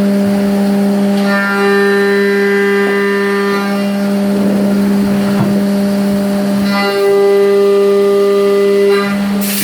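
Haas VF-2SS CNC mill machining aluminium with a 1-inch two-flute cutter at 12,000 RPM: a loud, steady whine pitched at the spindle and tooth-pass speed. The whine grows twice into a stronger, brighter tone as the cutter bites, and a hiss starts just at the end.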